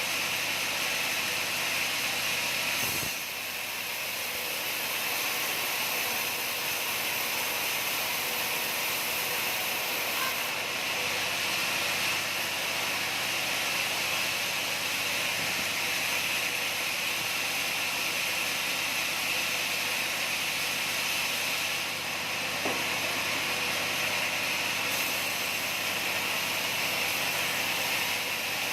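Sawmill saw running steadily, a loud even hiss-like machine noise, with a single knock about three seconds in.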